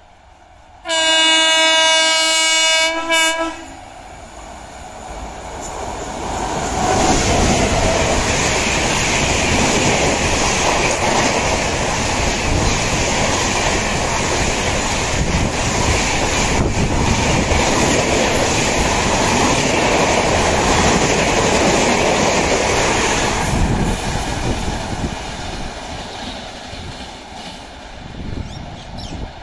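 Indian Railways express locomotive sounding its horn in one long blast with a short break before a brief final note, then the express running through the station at speed, wheels clattering over the rails. The noise builds over a few seconds, holds steady while the coaches pass, and fades away near the end.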